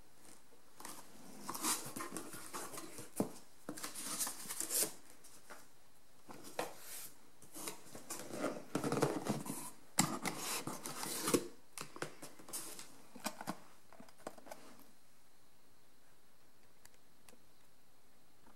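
Cardboard shipping box being opened by hand: irregular rustling, scraping and crinkling of packing tape and cardboard flaps, with sharp clicks and knocks, stopping about fifteen seconds in.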